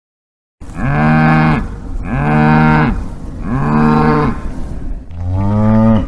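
Cow mooing four times in quick succession, each moo about a second long. The first three are alike, rising and then falling in pitch; the fourth is lower and cuts off abruptly.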